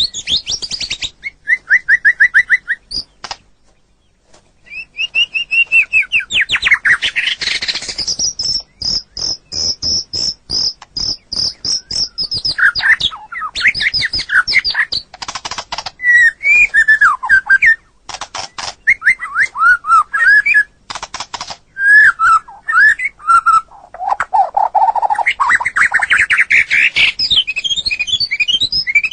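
White-rumped shama singing a long, varied song: fast trills, runs of rapidly repeated whistled notes, notes sliding up and down, and harsh buzzy phrases, with a short pause about four seconds in.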